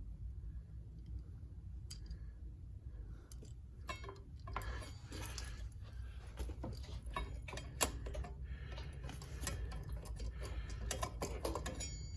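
Small metal mini-bike brake parts clicking, clinking and rattling as they are handled and fitted, getting busier about four seconds in, over a steady low rumble.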